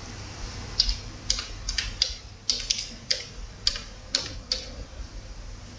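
Computer keyboard keys clicking as a word is typed: about ten sharp taps at an uneven pace, stopping about three quarters of the way through.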